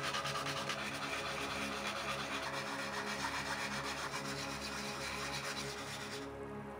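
Rapid back-and-forth rasping of a hand-held sanding file against styrene plastic, smoothing the rough corners and glued edges of a model. The strokes grow a little duller near the end.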